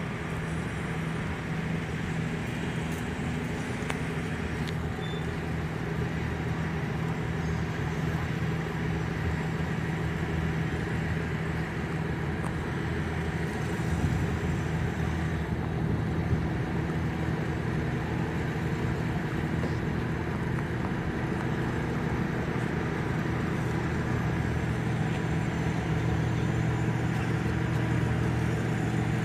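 Ship's engine running at a steady speed: an even low hum with several held tones, getting slightly louder over time.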